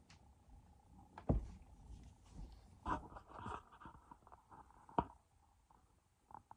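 Inflatable vinyl toy being handled: scattered squeaks, rubs and soft knocks of hands and body against the plastic, with sharper knocks about a second in and again near five seconds.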